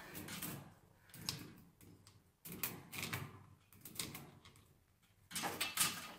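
Steel pliers clicking and scraping on mattress spring wire as a new loop is bent in the stiff spring steel, in about five short bursts of metallic clicks, the loudest near the end.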